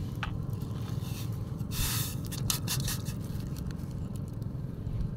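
Small twig fire crackling under a pot of instant noodles, with a short hiss about two seconds in and a few sharp crackles just after it. A low, steady rumble runs underneath.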